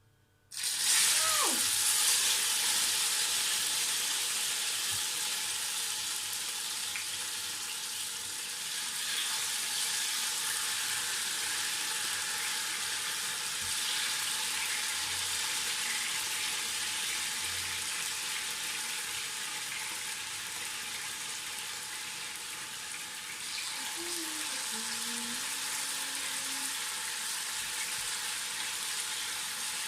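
Marinated chicken tocino going into hot cooking oil in a pan. It starts sizzling suddenly about half a second in and keeps frying with a steady hiss.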